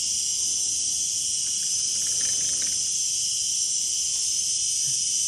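A male cicada singing: a loud, steady, high-pitched buzz that never breaks.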